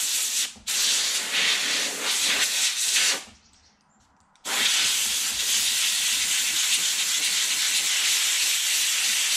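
Compressed air hissing from a trigger blow gun on an air-compressor hose, blown through a backpack blower's panel air filter to clear debris. Three blasts: a short one ending just after the start, one of about two and a half seconds, and a long one beginning about halfway through.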